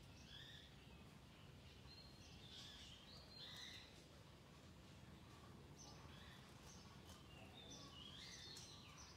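Faint bird chirps, short high notes coming every second or so, over a low steady background rumble.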